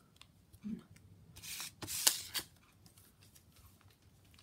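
Foil booster-pack wrappers crinkling as the packs are handled, in two short bursts about a second and a half and two seconds in.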